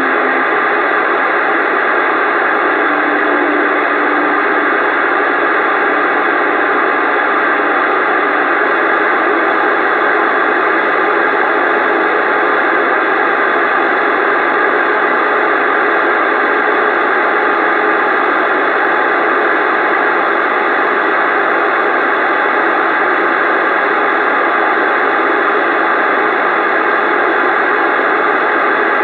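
CB radio receiver hissing steadily through its speaker, with no station talking.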